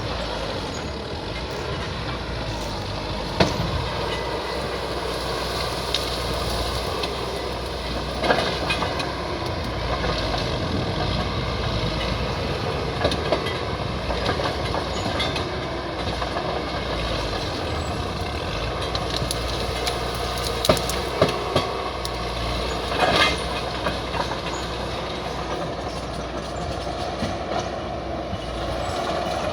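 Bulldozer's diesel engine running steadily under load, with occasional sharp metallic clanks.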